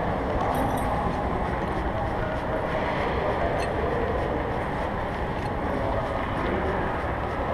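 Steady rushing background noise of a mall concourse, heard from a camera carried low while walking, with a few faint clicks.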